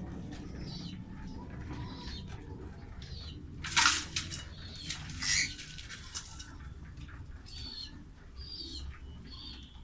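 Birds chirping in short repeated calls, with two loud rustling bursts, about four and five seconds in, that sound like flapping wings.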